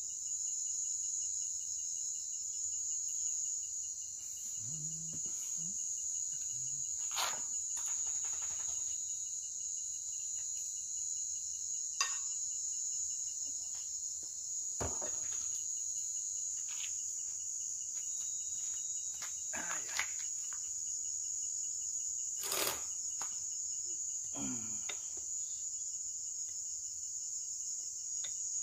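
Steady high-pitched chorus of crickets, with a faint fast pulsing trill beneath it. Scattered sharp clinks and knocks of plates and utensils as food is dished out.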